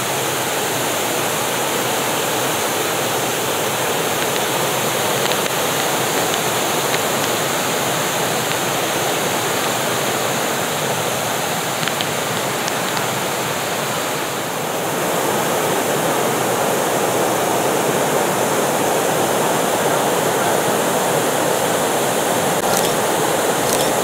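Several low waterfall cascades spilling into a pool: a steady rush of falling water that swells slightly a little past the middle.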